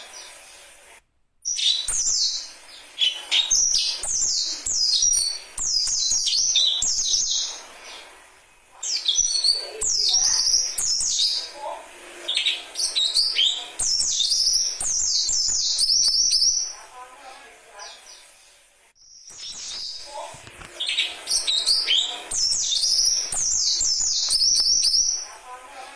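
A young songbird singing fast, high-pitched phrases of rapid chirps and trills, several seconds at a time with short pauses between.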